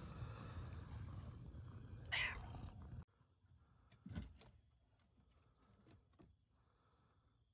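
A domestic cat gives one short meow about two seconds in, over steady outdoor background noise. After that, near quiet with a single soft knock.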